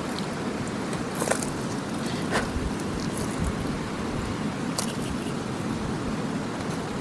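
Mountain river rushing steadily, with a few light clicks and knocks at about one, two and a half, and five seconds in.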